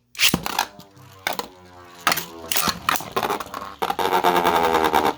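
Two Beyblade spinning tops launched into a stadium with a sudden rip, then whirring with a slightly falling pitch as they slow, hit by repeated sharp clashes. Near the end comes a sustained grinding as the tops rub against each other.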